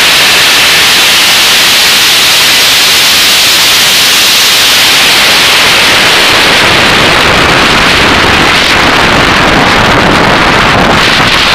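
Supercharged drag-race engine under power, heard through an overloaded onboard microphone as a constant, distorted wall of noise with no clear engine note.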